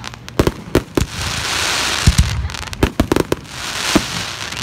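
Fireworks display: a rapid, irregular series of sharp bangs from aerial shells launching and bursting, with two longer stretches of crackling hiss in between.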